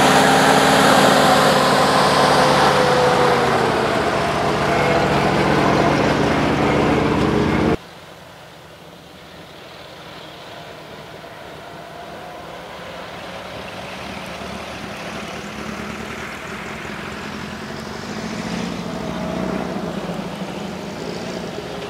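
GAZ-66 army truck's engine running as the truck drives up close, its pitch falling a few seconds in. About eight seconds in the sound cuts abruptly to the same engine heard far off and much quieter, growing slowly and rising in pitch near the end as the truck works across rough ground.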